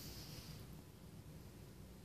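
Near silence: room tone with a low steady hum and a brief soft rustle at the start.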